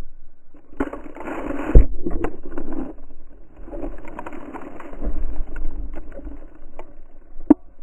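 A dog's fur and snow rub and scrape against a GoPro close up, a muffled rustling broken by knocks. The loudest knock comes about two seconds in and another sharp one near the end.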